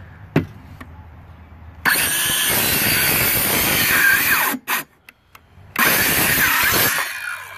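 Craftsman C3 19.2-volt cordless 5½-inch trim saw with an Admiral blade cutting through an old treated board. It runs loud for about two and a half seconds, then stops briefly with a couple of short bursts where the blade hits a knot, and runs loud again as it finishes the cut and winds down.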